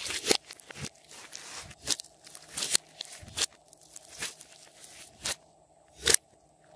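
Hands kneading and pressing a mound of glossy slime: irregular wet squishes and crackles, with a sharp pop about once a second.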